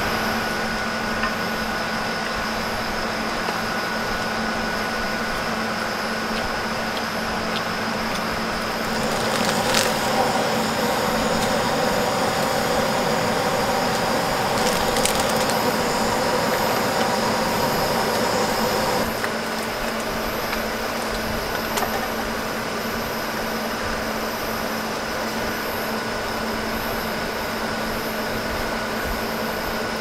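Hugos portable mini air conditioner running with a steady mechanical hum and a higher whine. A second, louder droning layer joins about nine seconds in and cuts off suddenly about ten seconds later.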